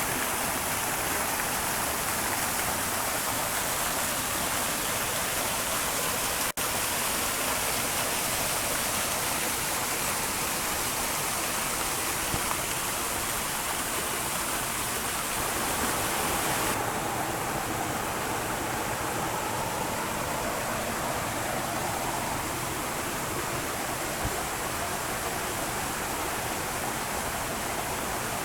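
Steady rushing of creek water tumbling over rocks, as at a small waterfall or cascade. It cuts out for an instant about six seconds in and sounds duller from a little past halfway.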